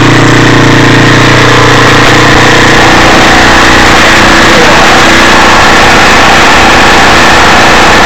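2005 Honda CRF150F's air-cooled four-stroke single-cylinder engine running loud and steady at a high, racing idle. It revs up on its own because the carburetor is flooding.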